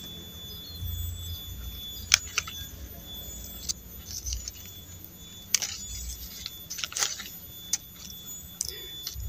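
Hand pruning shears snipping leaves and water shoots off a grapevine cane: about five sharp metallic snips, roughly one every second and a half.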